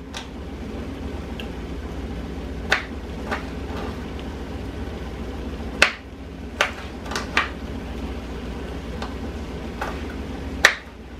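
Knife chopping broccoli on a cutting board: about eight sharp, irregularly spaced chops over a steady low background hum.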